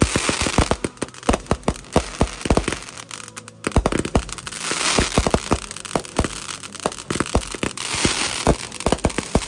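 Fireworks going off: a rapid, irregular string of sharp pops and crackles, with stretches of hissing spark noise under them.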